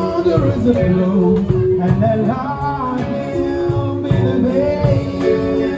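Live band playing a song: electric guitar, keyboards and drum kit with a melodic lead line over them, at a steady beat.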